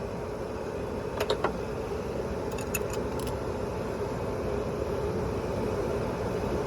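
Light metallic clinks of hand tools on the Volvo D13's rocker-arm adjusting screw as it is backed off, in two short clusters about a second and about three seconds in, over a steady low hum.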